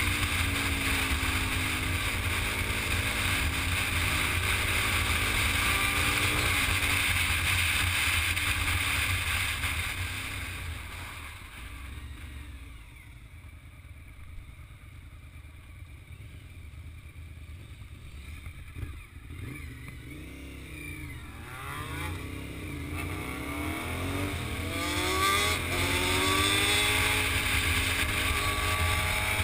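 Motorcycle engine and wind rush, heard from on board the riding motorcycle. The engine eases off and the sound drops low for about ten seconds as the bike slows, then the engine revs rise again in a few climbing sweeps as it accelerates back up to speed with loud wind.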